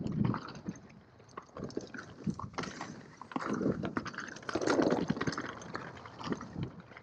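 Mountain bike riding fast down a dirt singletrack: tyres crunching over the trail amid a stream of clicks and rattles from the bike, with louder rushes of noise, the biggest about halfway through.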